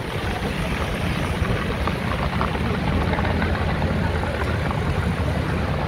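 Steady low rumble of motor scooter engines and street traffic close by, with no firecracker bangs.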